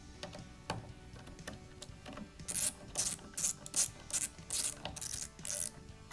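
Screwdriver turning the clamp screw that holds the folding-stock mechanism onto a 1913 rail. From about two and a half seconds in there is a run of about ten short clicking strokes, roughly three a second.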